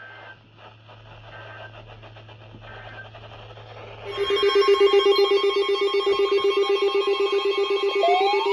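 A low steady hum with three faint short beeps, then about four seconds in a loud electronic alert tone starts. It pulses rapidly like a telephone ring, and gliding tones join near the end.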